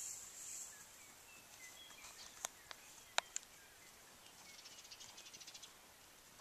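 Faint outdoor farmyard ambience with scattered short bird chirps. There are a few sharp clicks around the middle and a brief fast trill a little before the end.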